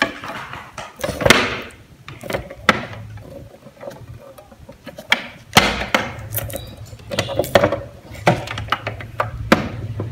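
Handling noise from moving and setting down a solar conversion kit unit: a string of sharp knocks and clacks, some close together, with rustling near the start.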